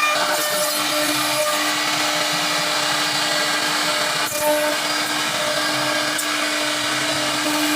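CNC router spindle running at a steady whine while cutting wood, surfacing a wooden bed panel flat. It dips briefly about four seconds in.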